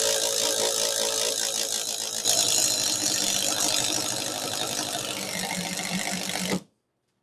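Compact 12-volt impact driver hammering a 5/8-inch self-feed paddle bit through a 2x4, a steady rapid rattling impact. It gets louder about two seconds in and stops abruptly near the end. The bit has bogged down near the bottom of the hole and is just spinning without pushing through.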